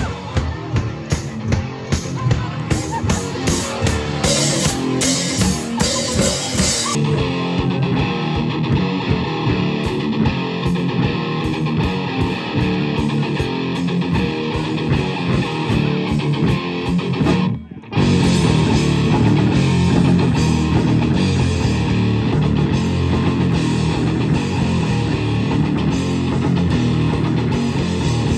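A live rock band playing: electric guitar and drum kit, loud and continuous. The sound breaks off for a moment about two-thirds of the way through, then the band carries on.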